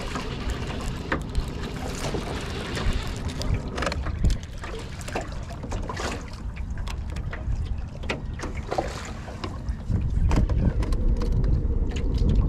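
Wind rumbling on the microphone over water lapping against a jon boat's hull, with scattered small clicks and splashes; the rumble grows louder about ten seconds in.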